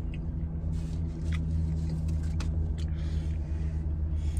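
A car engine idles with a steady low hum, heard from inside the parked car's cabin. A few faint clicks are heard over it.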